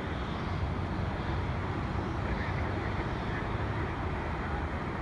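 Distant airport noise: a steady, low rumble of aircraft and vehicle engines, with no distinct events.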